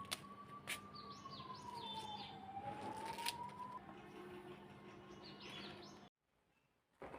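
Small birds chirping in short repeated calls over a faint, distant siren-like tone that slowly rises and falls, with a few light clicks; the sound cuts off abruptly about six seconds in, and a single soft knock follows near the end.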